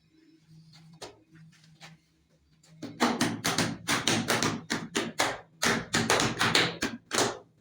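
A rapid run of sharp taps or knocks, about four a second, starting about three seconds in after a few faint clicks.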